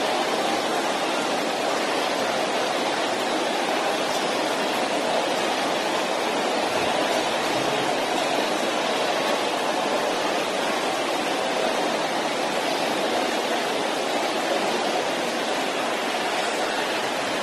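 A congregation praying aloud all at once, many overlapping voices blending into a steady wash of sound with no single voice standing out.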